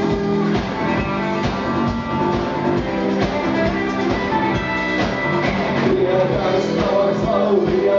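Live rock band playing an instrumental passage: electric guitars and bass over a steady drum-kit beat.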